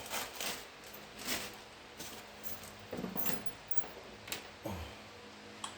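Faint, scattered metallic clinks and jingles of seat-belt hardware and bolts being handled, with small rustling handling noises.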